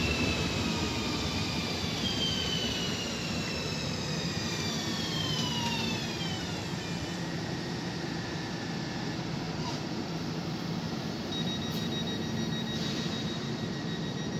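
DB class 1440 Alstom Coradia Continental electric multiple unit arriving and braking to a stop, its traction motor whine falling steadily in pitch over the first several seconds over a low hum. Once it has stopped, a steady high tone is left running.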